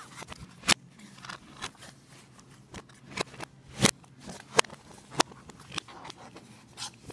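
Plastic DVD case being handled, giving a scattering of sharp clicks and light rubbing, the loudest clicks a little under four seconds in and again about a second later.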